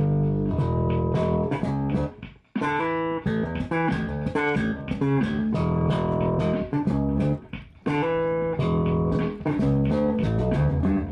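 Background music: plucked guitar over a bass line, breaking off briefly about two seconds in.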